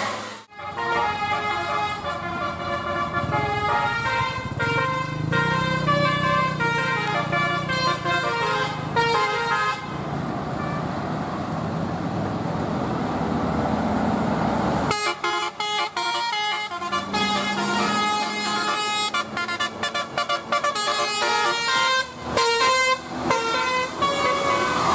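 Indonesian 'telolet' multi-tone bus horn playing a melody of stepped notes for about the first ten seconds. After a few seconds of engine and road noise in the middle, the horn comes back in short, choppy bursts of notes broken by abrupt cut-offs.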